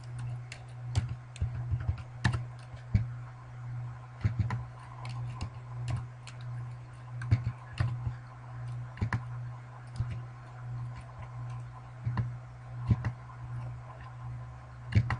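Irregular clicks and taps of a computer keyboard and mouse, over a steady low electrical hum.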